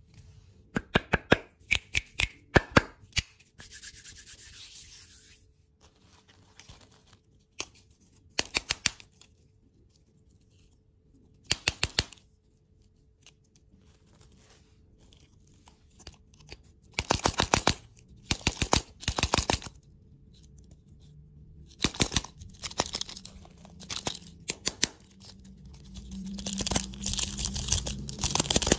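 Fingers tapping and rubbing the crinkly plastic wrappers of large ball lollipops, in short bursts of quick clicks with quiet pauses between. Near the end it turns into a denser, louder rustling as the lollipops are picked up and handled.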